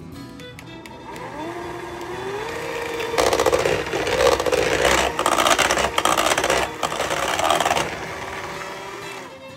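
Electric hand mixer starting up, its motor whine rising in pitch, then the beaters churning loudly and scraping against a stainless steel bowl as they beat pudding mix into a filling that is turning thick and fluffy. The motor eases off and stops near the end.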